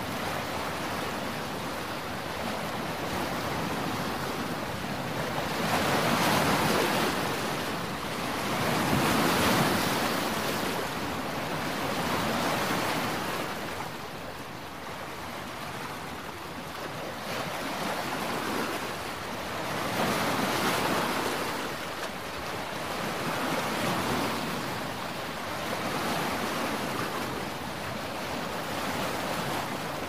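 Red Sea waves washing onto a rocky shore, the surf swelling and fading every three seconds or so, with wind blowing.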